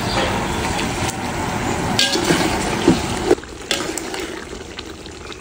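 Hot water poured from a measuring jug into a large aluminium pot of masala, a steady rush with a few clinks. It cuts off sharply a little over three seconds in, leaving a quieter sound of a ladle stirring in the pot.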